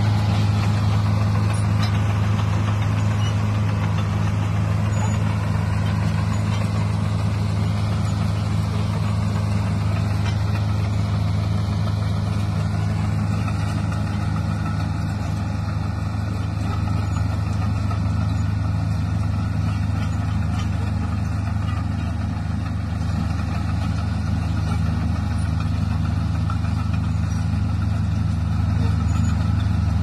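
Komatsu D155A crawler bulldozer's diesel engine running steadily as the machine works and moves away. Its higher tones dull after the first several seconds.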